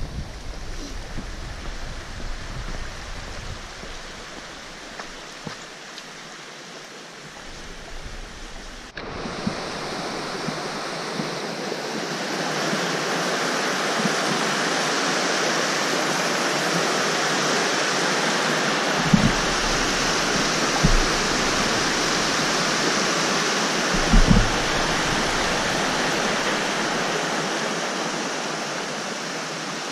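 Steady rush of a fast-flowing stream's white water. It is quieter for the first several seconds, comes in strongly after a sudden change, then holds loud until it eases near the end. A few dull bumps sound partway through.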